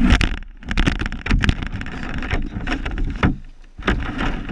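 Loud crunching and scraping on icy snow right at the microphone, uneven and broken by sharp knocks, with short lulls about half a second in and again near the end.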